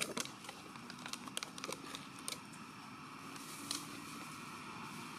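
Dry leaf litter crackling in short, sharp clicks as macaques move over it, several close together in the first two seconds or so and one more a little before four seconds, over a steady faint background.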